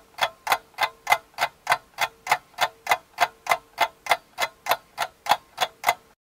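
Regular ticking, about three sharp ticks a second, with a faint steady hum underneath. It stops abruptly about six seconds in.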